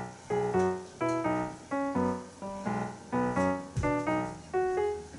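Background music: a light melody on a piano-like keyboard, its notes struck a few times a second and dying away.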